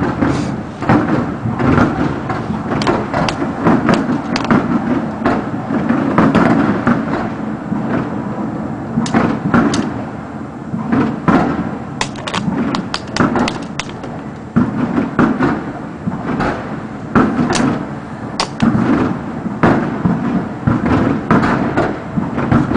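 Fireworks display going off in quick succession: a dense, continuous run of heavy booms with sharper cracks among them.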